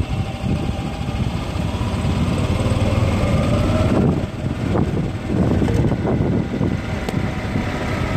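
Golf cart driving along: its motor runs with a faint whine that rises in pitch over the first few seconds, over a heavy rumble from the cart rolling, with a few sharp knocks about four to five seconds in.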